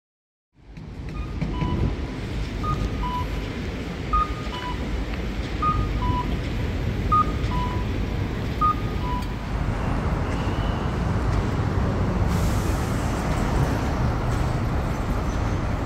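Japanese accessible pedestrian crossing signal sounding a two-note falling electronic "cuck-oo" tone about every second and a half, over steady city traffic. The signal stops about nine seconds in, leaving road traffic.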